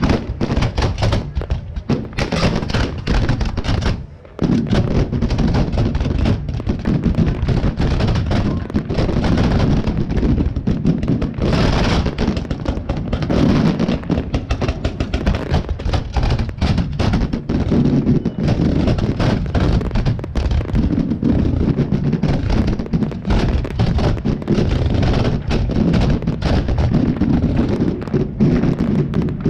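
Fireworks display: a dense, continuous barrage of bangs and crackles, with a brief lull about four seconds in.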